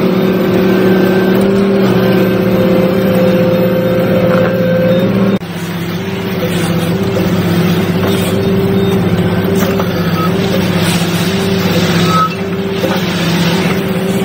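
Diesel engine of the Giken hydraulic power unit for an SA100 silent piler, running steadily at constant speed. About five seconds in, the sound cuts to a slightly quieter engine hum with a regular pulsing throb, with no hammer blows or impacts.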